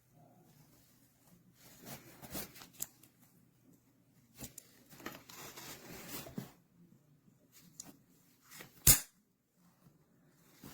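Handling noises from a camera backpack clip and its strap: several bursts of rustling and scraping, and one sharp click about nine seconds in.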